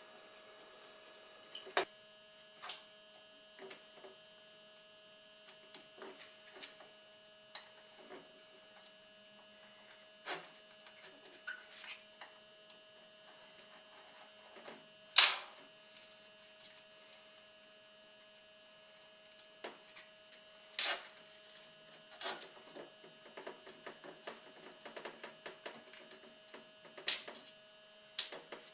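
Scattered clicks and knocks of small parts being handled on a workbench, with one louder knock about halfway and a quicker run of light clicks near the end, over a steady electrical hum.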